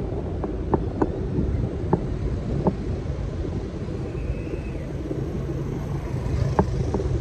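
Steady low rumble of city street traffic heard through a handheld phone microphone, with a few light clicks in the first few seconds and again near the end, and a faint brief high whine around the middle.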